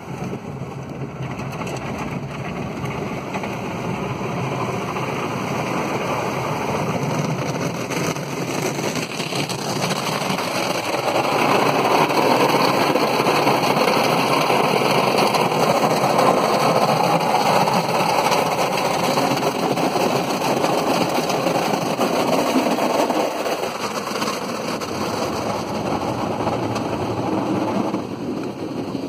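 Automatic car wash spraying water onto the car, a steady rushing hiss heard from inside the cabin. It builds up, is loudest through the middle, and drops off near the end.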